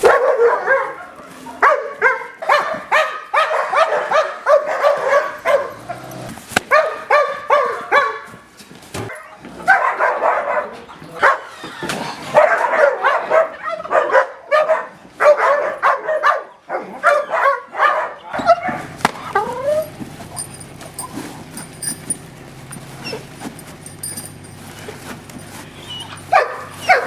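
Guard dogs barking hard in rapid, overlapping volleys. About two-thirds of the way through the barking dies down to occasional barks over a low steady hum.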